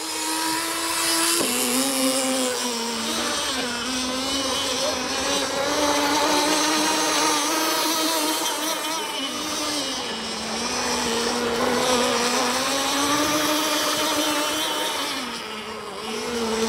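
Small two-stroke glow (nitro) outboard engine of an RC tunnel-hull boat, an OS 21XM 3.5 cc, running at high revs with a high, buzzing note. Its pitch drops about a second and a half in, then wavers up and down as the throttle and speed change.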